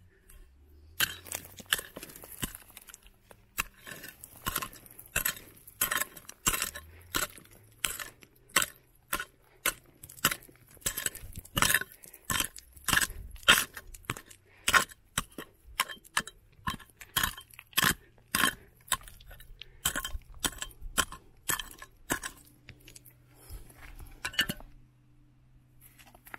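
Hard stones clinking and knocking together in a quick, uneven series of sharp clicks, about two a second. They stop shortly before the end.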